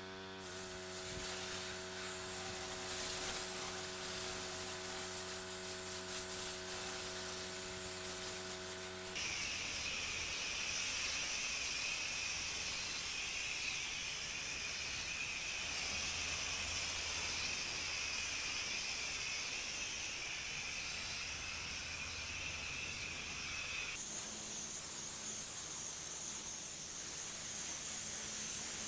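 Pressure washer water jet spraying with a steady hiss. In the first part a steady pitched hum from the machine runs under the spray, and the character of the sound changes abruptly about nine seconds in and again near twenty-four seconds in.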